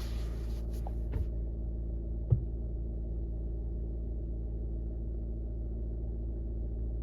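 Skoda Kodiaq's engine idling steadily, with a few light clicks in the first couple of seconds, the loudest about two seconds in.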